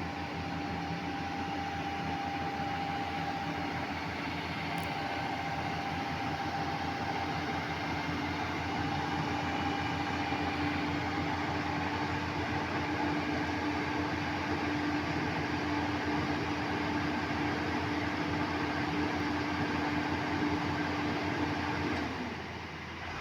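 JCB excavator's diesel engine running steadily with a constant hum and low rumble. The engine speed sags near the end.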